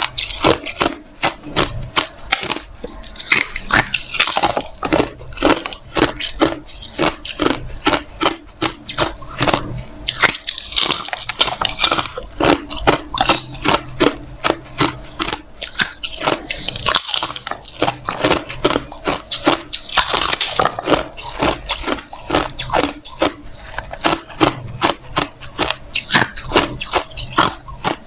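Hard ice being bitten and chewed close to the microphone: continuous sharp crunching at about two to three bites a second.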